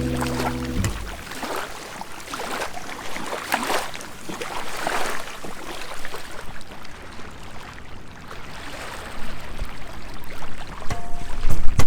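Sea waves washing onto a shore: a steady rush of water that swells and ebbs. Bossa nova music dies out about a second in and starts again near the end.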